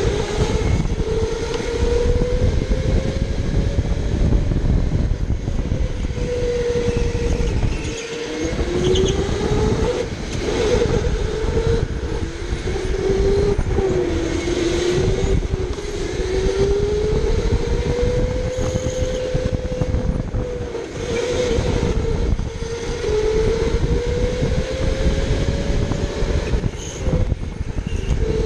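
Electric indoor go-kart motor whining as the kart drives. The pitch rises as it speeds up and dips as it slows, again and again through the corners, over a low rushing noise.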